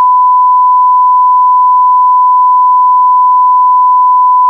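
Censor bleep: one loud, steady, pure tone held unbroken, dubbed over speech to mask it.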